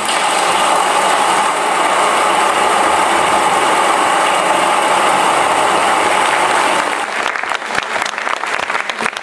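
Theatre audience applauding: dense, loud clapping that thins to separate claps about seven seconds in.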